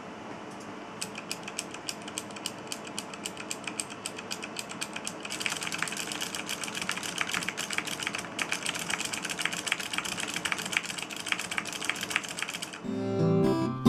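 Computer input-device switches clicked in a quick, even rhythm, several clicks a second, turning faster and louder about five seconds in. Near the end the clicking stops and acoustic guitar music begins.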